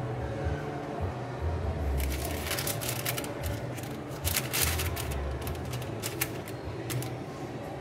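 Crinkly rustling and light clicks of paper liner sheets being handled and lifted in a box of chocolates, coming in irregular clusters from about two seconds in.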